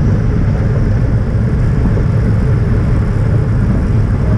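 Steady, loud wind rumble over the microphone of a bicycle-mounted camera at riding speed, mixed with road noise.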